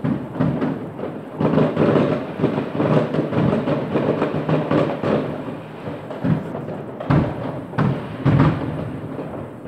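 Many fireworks going off at once across a town: a dense, continuous crackle of overlapping bangs and booms, with a few single heavy bangs near the end.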